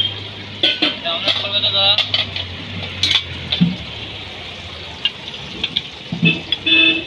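Steel ladles clinking and scraping against stainless steel curry pots as curry is served into foil plates: a run of short, sharp clatters, over a low steady hum and background voices.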